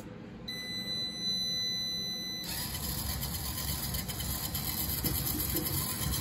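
The homemade model trommel's small electric drive motor is being powered up. A steady high-pitched whine comes in about half a second in, and about two and a half seconds in it gives way to the steady running noise of the motor turning the chain-driven drum.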